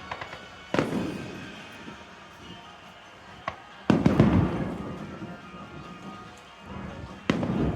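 Fireworks shells bursting overhead: three loud bangs a few seconds apart, near the start, about four seconds in and near the end, with a smaller pop just before the middle one. Each bang is followed by a rolling echo, and music plays underneath.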